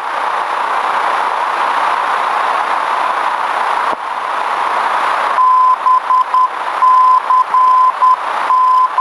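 Radio static hiss through the aircraft's navigation receiver audio. About five seconds in, a steady beeping tone near 1 kHz starts, keyed on and off in long and short pieces: a navigation beacon's Morse code identifier coming through as the receiver picks up the station.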